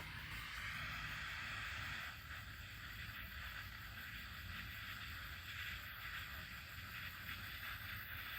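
Butane torch burning with a steady hiss, heating a seized fender bolt to help free it.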